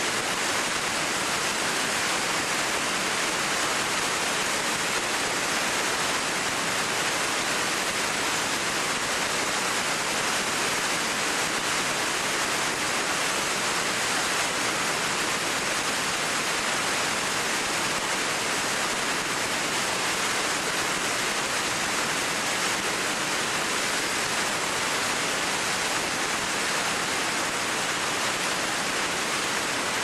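Choshi Otaki, a broad waterfall, pouring into its plunge pool: a loud, steady rush of falling water that stays even throughout, without a break.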